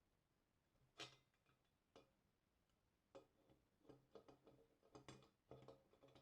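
Faint clicks and light taps of small blowtorch parts being handled during reassembly: one sharp click about a second in, another a second later, then a quicker run of small taps and clinks through the second half.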